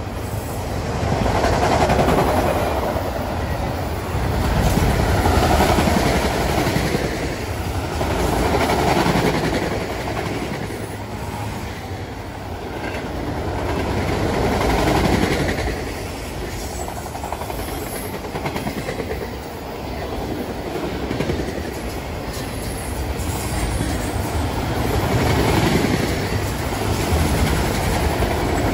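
Freight train of autorack cars rolling past on the rails: a steady rumble and clatter of steel wheels, swelling and easing every few seconds as the cars go by.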